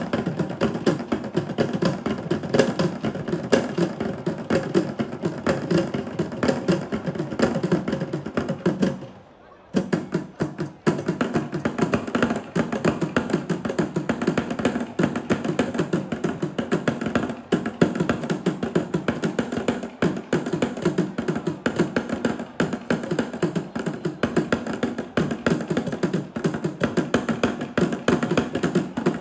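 Sri Lankan traditional drumming: fast, dense strokes on a pair of small stick-beaten drums and a barrel drum played at the waist. It breaks off briefly about nine seconds in, then starts again.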